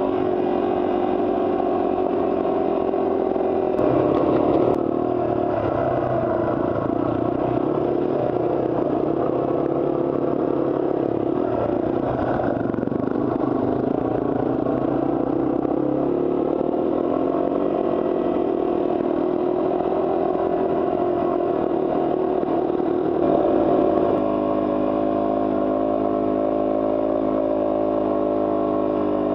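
Yamaha TW200 single-cylinder trail motorcycle engine running under way, its note rising and falling with the throttle. It briefly gets louder about four seconds in and again near the end, then settles into a steadier note.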